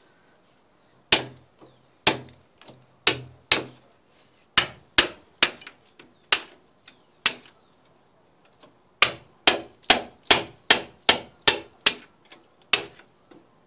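Hammer blows on a steel chisel chipping a hole through a concrete block wall for a pipe. The strikes come about a second apart at first, stop for a moment, then pick up into a quicker run of about three blows a second.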